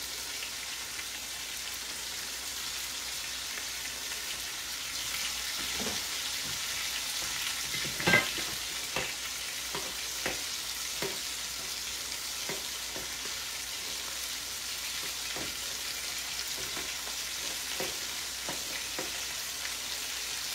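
Beef chuck roast searing in olive oil in a Dutch oven, a steady sizzle. Over it come occasional light knocks of a spoon stirring a pot on the back burner, the loudest about eight seconds in.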